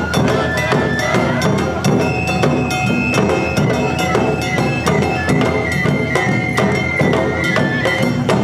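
Awa odori festival music (narimono): taiko drums and a kane hand gong keep a brisk, driving beat while shinobue flutes hold high notes over them.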